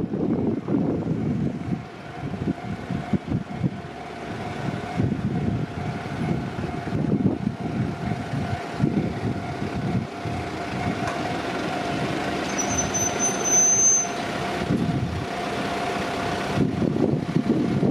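A Kintetsu Nagoya Line train passing over a level crossing, its wheels rumbling and clattering, while the crossing's warning bell keeps ringing. A brief high squeal comes about 13 seconds in.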